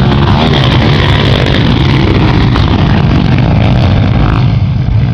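Motocross dirt bike engines running loud and steady at high revs.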